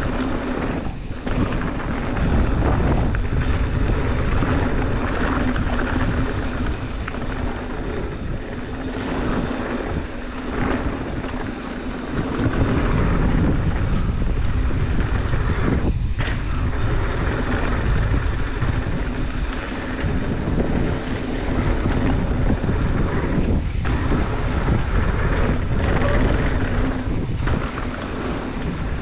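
Wind rushing over an action camera's microphone, mixed with mountain bike tyres rolling fast over a dirt flow trail. It is a loud, steady rush with a few short dips.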